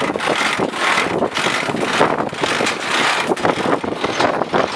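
Wind buffeting the microphone on a sailing ship's deck: a steady rushing noise with irregular gusty surges.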